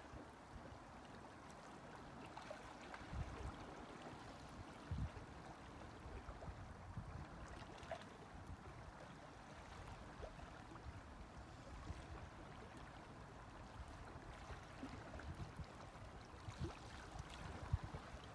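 Faint, soft wash of small lake waves lapping on a pebble shore, with a few brief low thumps.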